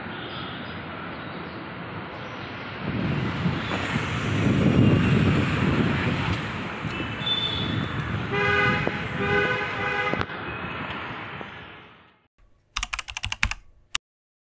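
City street traffic noise with vehicles passing, and a car horn tooting twice about eight and a half seconds in. The traffic fades out, then a quick run of sharp clicks sounds near the end.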